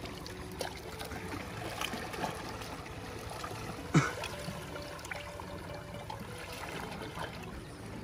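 Small sea waves lapping and trickling among shoreline rocks, with faint background music. A single short, louder sound comes about halfway through.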